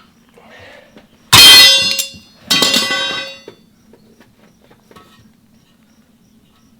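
Two loud metal clangs a little over a second apart, each ringing on for about a second: steel tools striking the steel rim of a backhoe wheel during tube tire work.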